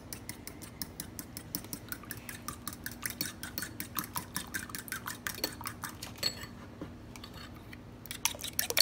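Metal utensil beating two raw duck eggs in a ceramic bowl, clicking against the bowl at about five strokes a second. The strokes thin out about six seconds in, then pick up again louder at the end.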